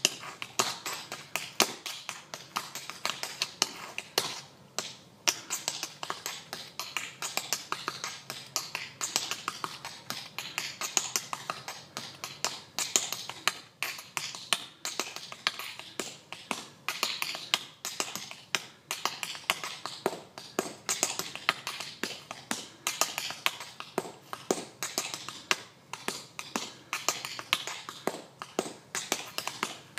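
Tap dancing on pavement: tap shoes strike in a fast, uneven run of sharp taps, with a short pause about five seconds in.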